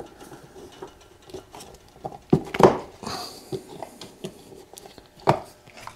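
Hands handling a motorcycle wiring harness and plastic connector holder, with scattered light clicks, rustles and knocks; the loudest knocks come about two and a half seconds in and again just past five seconds.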